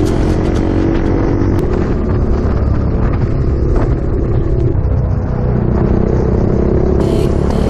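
Kawasaki Dominar 400's single-cylinder engine through an aftermarket muffler, running under way with a deep, bassy exhaust note; the note eases off partway through and picks up again near the end.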